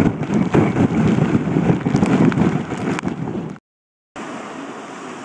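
Wind buffeting the microphone: a loud, rumbling rush with scattered crackles that cuts off abruptly about three and a half seconds in. It is followed by much quieter steady outdoor noise.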